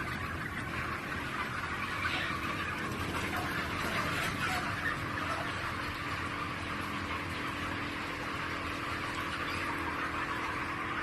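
A flock of poultry calling all at once: a dense, steady chatter of many birds, over a steady low hum.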